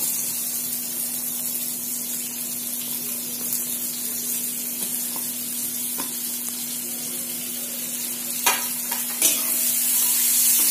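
Sliced onions sizzling as they fry in hot oil in a steel pan, with a steady low hum underneath. Two sharp knocks come about eight and a half seconds in, and the sizzle gets louder near the end as the onions are stirred.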